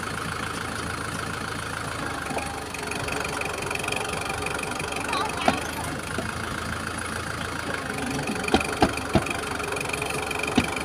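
Kubota tractor's diesel engine running steadily as it drives through deep mud, its wheels churning. A handful of sharp knocks come through in the second half.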